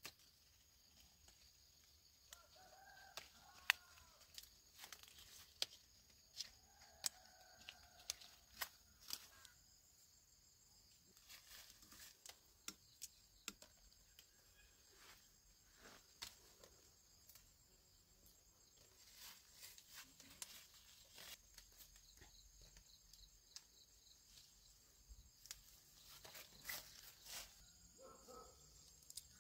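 Light rustling of leaves and branches with sharp little clicks as small green apples are snapped off and dropped into a woven bamboo basket, over a steady high drone of insects. A chicken calls twice in the first few seconds.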